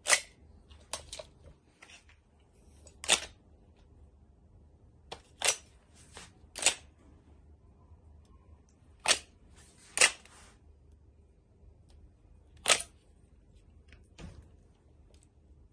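Sharp clicks and clacks, about a dozen at irregular intervals, from tools being slotted into and lifted out of a stainless steel belt holster.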